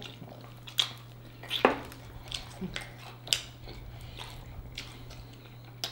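Close-miked eating sounds: lip smacks and sucking as chicken wings are gnawed clean to the bone, with a handful of short sharp smacks about a second apart.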